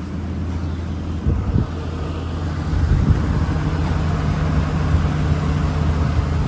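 An engine running steadily at idle; a further steady tone joins and it grows slightly louder about three seconds in.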